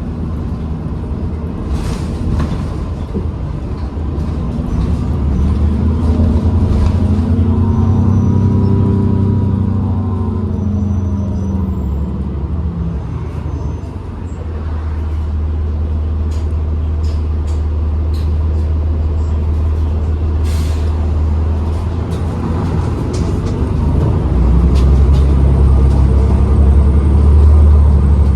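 Cabin sound of a 2012 New Flyer XDE40 diesel-electric hybrid bus under way: steady low drivetrain and road rumble with scattered rattles. About six seconds in, a whine climbs in pitch and then falls away over several seconds, the bus's weird winding sound. The rumble grows heavier near the end.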